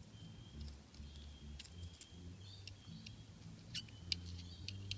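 Faint, scattered clicks and taps of a padlock being handled and measured with calipers, about six small clicks in all, most of them in the second half.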